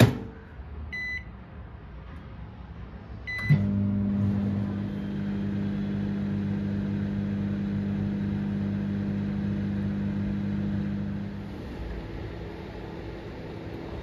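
A sharp click, then two keypad beeps from a BPL microwave oven, and it starts running on high with a steady electrical hum to heat a bowl of water for steam-cleaning. Near the end the hum drops to a quieter level.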